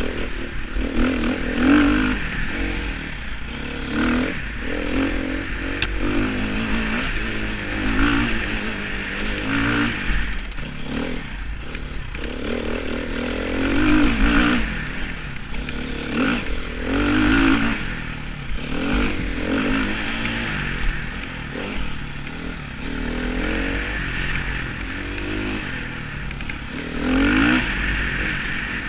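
Dirt bike engine running under a trail rider, its pitch rising and falling over and over as the throttle is opened and closed, heard from a helmet-mounted camera.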